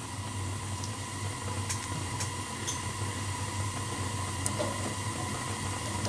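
Rheem RGDA gas furnace running with its burners lit, giving a steady low hum and rush; the burners are firing at their rated manifold pressure of about 3.5 inches. A few faint light ticks come as the regulator cap is put back on the Robertshaw gas valve.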